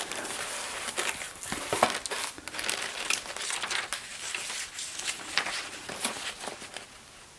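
Cardboard box flaps and crumpled brown kraft packing paper crinkling and rustling as the box is unpacked and a folded paper letter is pulled out and opened. A run of short crackles and rustles that dies away near the end.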